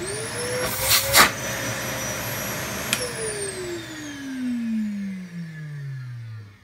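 Numatic XP380 vacuum cleaner's UDS motor switched on, whining up to speed and running steadily for about three seconds, then switched off and winding down with a steadily falling whine. The run sounds a little bit dry. Two sharp knocks come about a second in.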